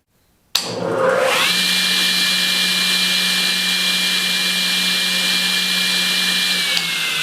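Grizzly G0771Z table saw switched on with a click: its motor and blade spin up in about a second to a steady whine. About six and a half seconds in there is another click and the pitch starts to fall as the saw is switched off and coasts down.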